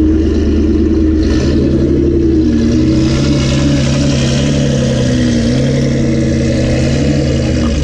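Modified Nissan GT-R R35's twin-turbo V6 running loud at the exhaust, blipped and held at raised revs with its pitch shifting a few times, then settling back toward idle near the end.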